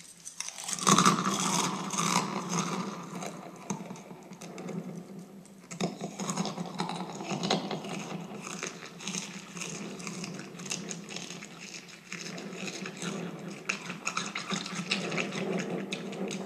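Frosted Flakes cereal being chewed right at a microphone turned up all the way: a continuous crackling crunch, easing briefly about six and twelve seconds in.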